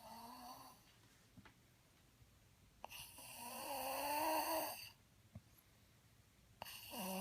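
Snoring: a short faint snore, then a long louder one about three seconds in, and another starting near the end, each with a pitched, wavering tone.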